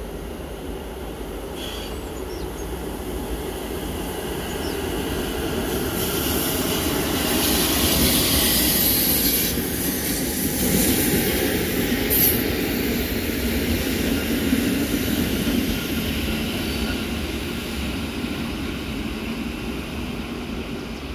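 Class 41 electric locomotive hauling a double-deck coach going past on rails. The running and wheel noise builds as it approaches, is loudest as it passes about eight to fifteen seconds in, with a brief sharp high sound near twelve seconds, then fades as it draws away.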